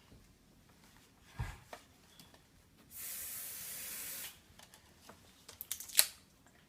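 A single spray of hair product, a steady hiss lasting about a second and a half. A dull thump comes before it, and a few sharp clicks follow near the end, the last one the loudest sound.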